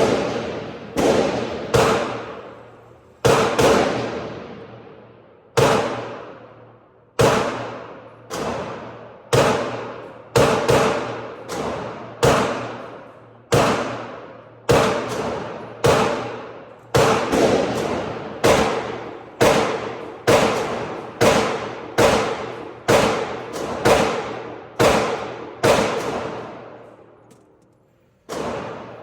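9mm Glock 19 pistol being fired shot after shot at a steady, unhurried pace, roughly one shot a second with a few short pauses. Each sharp report is followed by a long echoing decay.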